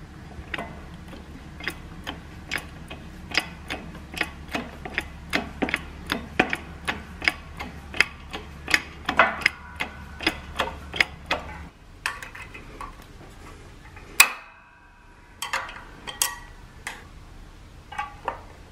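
Sharp metallic clicking, about one or two clicks a second, as a shop press is worked down by hand to compress the return springs under the retainer of a 47RE transmission's direct clutch drum. A low steady hum stops about two-thirds of the way through, and one loud click stands out near the end.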